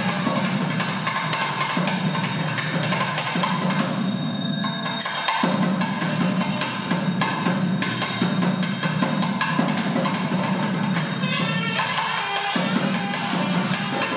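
Hindu temple puja music: drums beating a steady rhythm with bells ringing over them.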